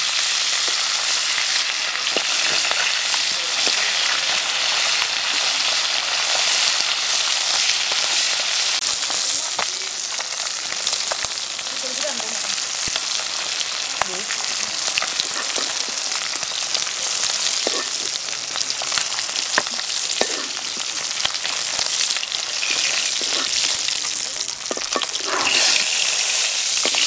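Whole climbing perch frying in hot oil in a kadai, a steady sizzle, with scattered clicks and scrapes of a metal spatula turning the fish and lifting them out.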